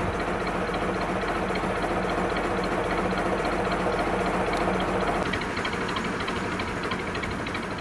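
Narrowboat's inboard engine running steadily at low cruising revs, a regular mechanical chug. It eases off slightly about five seconds in.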